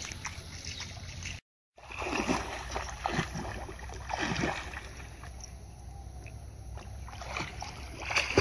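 A person swimming in a pond, splashing water with their strokes. The sound cuts out briefly about a second and a half in, just before the splashing.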